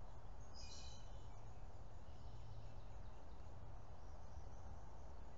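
Steady low background rumble with a short high-pitched chirp about half a second in and fainter chirps later.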